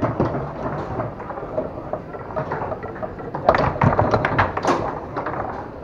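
Foosball being played on a Tornado table: the hard ball clacks off the plastic men and walls, and the rods knock as they are slid and struck. About three and a half seconds in comes a quick flurry of sharp hits.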